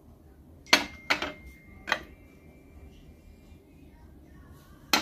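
Lomonosov (LFZ) porcelain teacup and saucer clinking together as they are picked up and handled: three sharp clinks in the first two seconds, the china ringing briefly after them, and another clink near the end.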